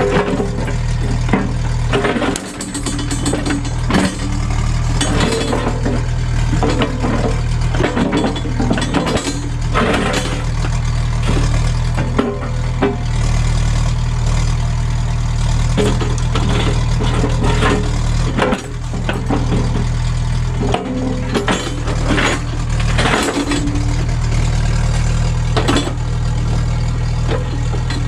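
Case CX75SR excavator's diesel engine running steadily under hydraulic load while the machine digs, with irregular clanks and knocks from the bucket and linkage throughout.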